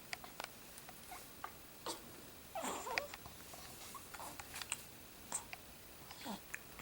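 A newborn baby's faint soft squeaks and grunts amid scattered small clicks.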